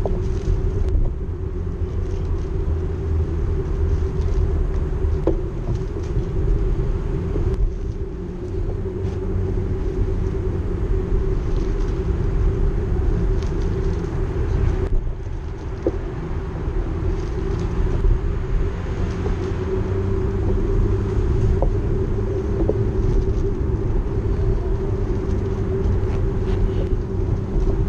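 Small boat's outboard motor running steadily: a low rumble with a constant hum.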